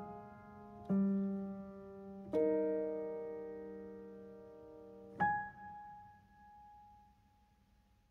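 Background piano music: slow chords struck about a second, two and a half seconds and five seconds in, each left to ring and die away, the last fading out to near silence near the end.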